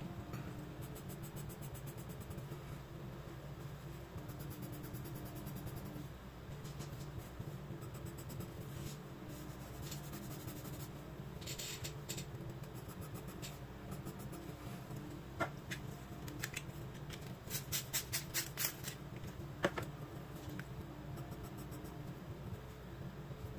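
Graphite pencil scratching on sketchbook paper in short hatching strokes, with quick runs of about five strokes a second a little after the middle, over a steady low hum.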